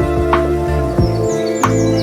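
Calm instrumental music with long held notes, overlaid with birds chirping in short falling notes.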